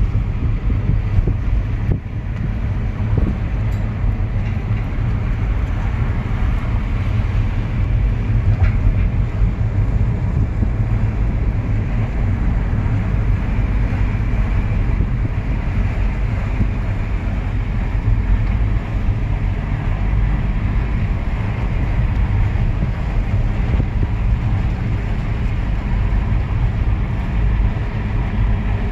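Road noise of a moving car heard from inside the cabin: a steady low rumble of tyres, engine and wind that does not let up.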